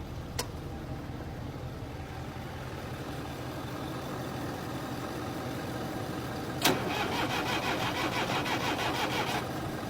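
Massey Ferguson 308 diesel engine being cranked on the starter without catching, because air is in the fuel lines after the fuel filter cracked and let them drain. A sharp click comes about half a second in, and the cranking turns suddenly louder about two-thirds of the way through before dropping back near the end.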